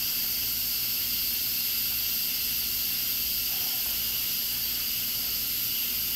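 Instant Pot electric pressure cooker venting steam through its pressure-release valve: a steady hiss as the pressure is let down before the lid can be opened.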